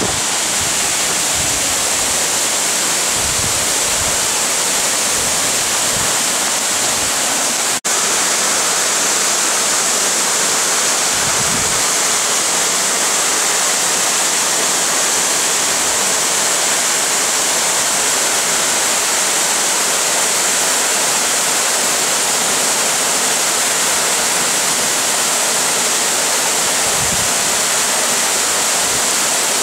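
Rushing water of a mountain river, a loud steady rush that cuts out for a moment about eight seconds in.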